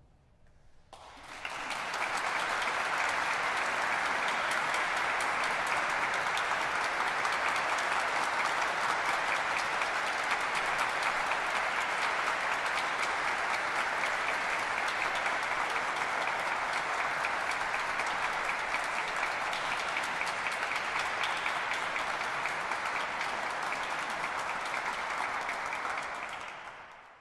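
Audience applauding, starting about a second in and holding steady before fading out near the end.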